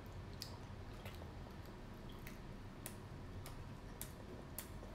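Close mouth sounds of chewing fried mozzarella sticks: scattered sharp little clicks and smacks, irregular, about one or two a second, over a low steady hum.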